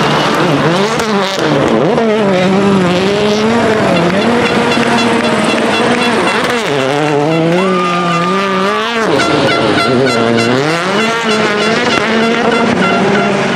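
2015 Hyundai i20 WRC's 1.6-litre turbocharged four-cylinder revving hard while the car slides on loose ground, its pitch swooping up and down again and again, with tyre squeal. About eight seconds in, the revs hold steady for a little over a second under a high, steady whine, then drop away.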